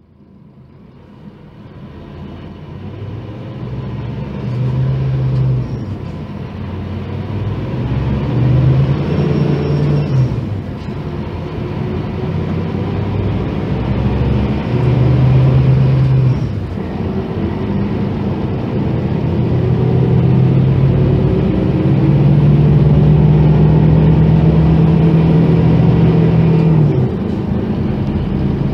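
Rear-mounted five-cylinder diesel engine of a Scania K310 coach running under way, fading in at the start. Its deep note swells and eases several times, then holds loudest and steadiest for a long stretch near the end.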